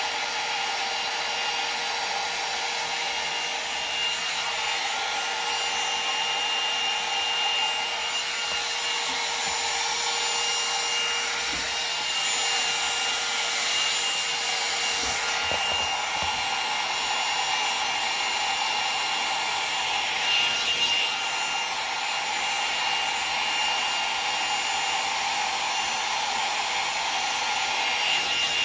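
Conair 2-in-1 hot air styler, a wand-shaped blow dryer with a brush head, running steadily: a constant rush of air with a high, thin motor whine.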